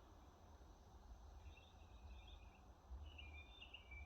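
Near silence: faint bird chirps from about a second and a half in, over a low rumble.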